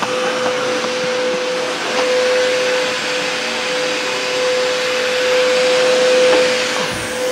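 Steady running of an electric motor appliance: an even whirring hiss with a constant mid-pitched hum.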